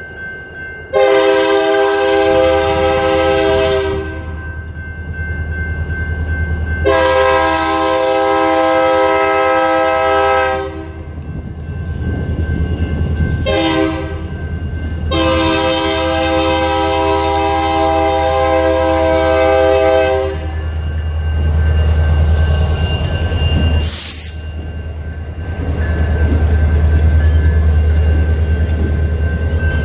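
Diesel locomotive air horn sounding the grade-crossing signal: two long blasts, one short and one long, over the steady ringing of the crossing bell. The locomotive's engine rumble then grows louder as it pulls into the crossing, with one sharp crack a little before the end.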